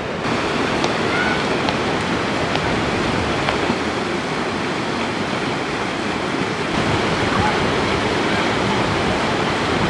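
Shallow, rocky mountain river running over boulders in rapids: a steady rush of water.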